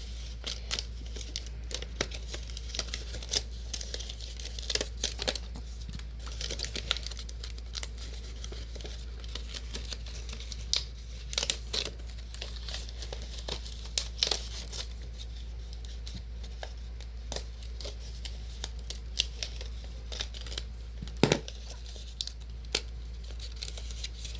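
Paper airplane book pages being torn and crinkled as card pieces are popped out along their perforations: irregular rustling and tearing with a sharper snap near the end, over a steady low hum.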